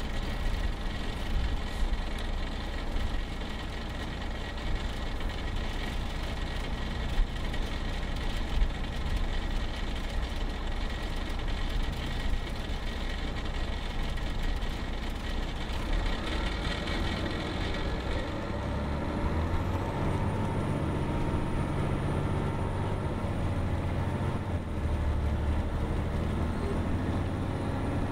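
Detroit Diesel Series 60 diesel engine of an MCI D4500 coach running, heard from inside the passenger cabin as a steady drone with a hiss above it. About two-thirds of the way through, the sound turns deeper and heavier and the engine note rises and falls. Two short knocks come early on.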